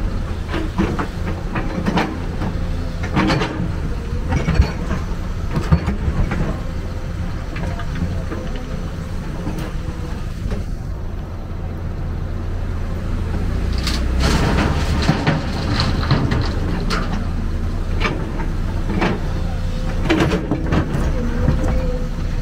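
Excavator engine running steadily under load, with repeated sharp knocks and clanks of the machine at work, busiest a little past the middle.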